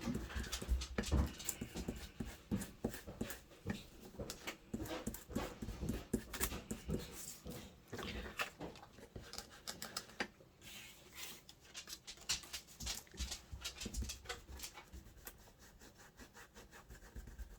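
Rapid, irregular soft dabbing of an ink blending tool pouncing ink through a stencil onto paper, a quick run of short pats that eases off near the end.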